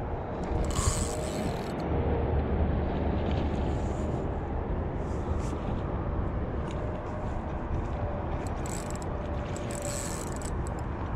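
Spinning reel being cranked against the pull of a hooked carp, with scattered clicking over a steady low rumble.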